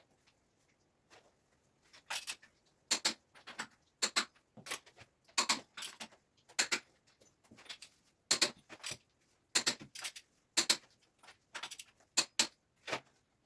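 An irregular series of light, sharp clinks and clicks from metal hardware being handled, about twenty over ten seconds, starting about two seconds in.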